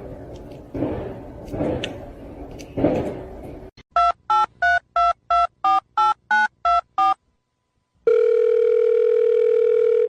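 A few rough, noisy bursts, then about ten quick touch-tone telephone keypad beeps as a number is dialled, each beep a pair of tones. After a short gap comes a steady telephone tone, the line ringing or a dial tone.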